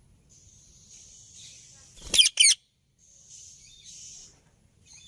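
Indian ringneck parakeet giving two short, shrill screeches in quick succession about two seconds in, their pitch wavering rapidly, over a steady faint high hiss.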